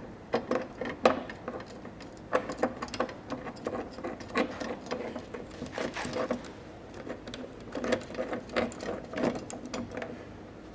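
Metal hand-tool work: irregular bursts of sharp mechanical clicks and clinks, metal on metal, a cluster every second or so.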